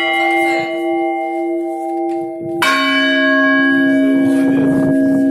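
Church bells being rung by a learner. A bell struck just before rings on, then a second, deeper bell is struck about two and a half seconds in and rings out loudly.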